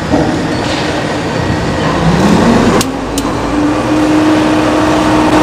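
Steady mechanical running noise, like an engine or machine, with a low hum that rises briefly about two seconds in. Two sharp clicks come near the middle, and a steady tone holds after them.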